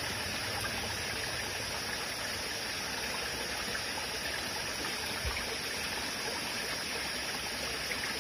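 Small rocky forest stream flowing and trickling steadily, with a single soft low thump about five seconds in.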